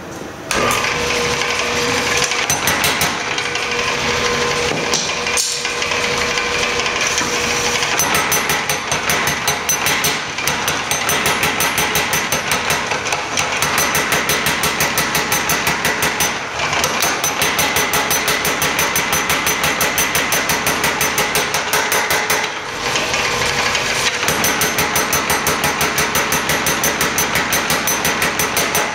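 Power hammer striking a glowing 1-inch steel bar between its dies to draw it out: a fast, even run of blows that pauses briefly twice partway through.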